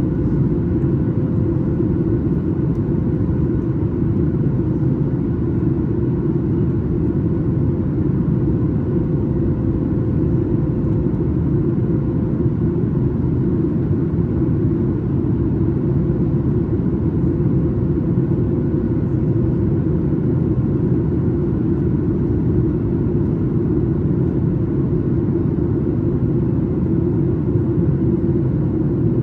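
Steady, loud rumbling cabin noise of a Boeing 737 MAX 8 in flight, from its CFM LEAP-1B engines and the airflow, heard from inside the passenger cabin.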